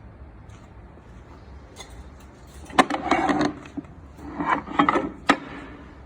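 Matsumoto Kikai WP300-2 welding positioner and its chuck being worked: two short spells of metal knocking and rattling, about three seconds in and again about four and a half seconds in, ending in a sharp click, over a low steady hum.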